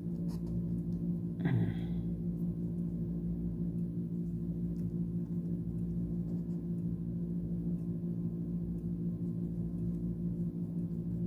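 A steady low-pitched hum made of several fixed tones, with a brief murmur about a second and a half in.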